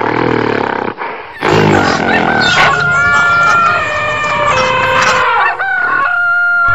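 A rooster crowing, with a rougher animal call in the first second. The crowing is a series of long pitched calls that hold and then fall.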